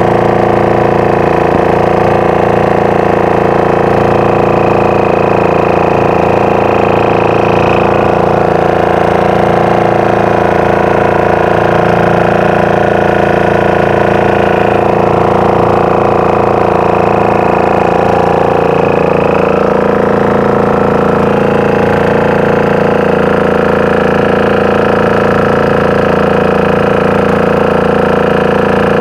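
A wooden fishing boat's engine running steadily under way: a loud, even, unbroken drone.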